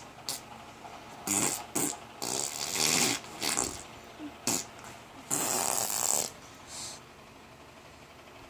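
Baby making fart-like raspy noises with her mouth and nose: several short, noisy bursts, the longest about a second, that stop a couple of seconds before the end.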